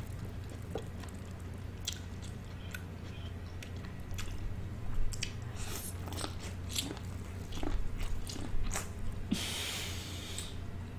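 Close-miked biting and chewing of sweet corn on the cob: crisp crunches and wet mouth clicks scattered irregularly, with a brief rush of noise about nine and a half seconds in. A steady low hum runs underneath.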